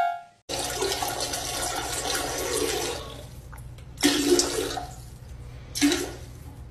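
Toilet flushing: a rush of water starts suddenly about half a second in and fades after two or three seconds. Two short, louder bursts of sound follow near the end, over a steady low hum.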